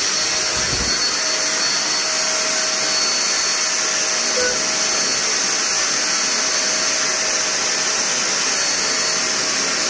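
Corded handheld vacuum cleaner running steadily: an even motor whine with a thin high tone over it.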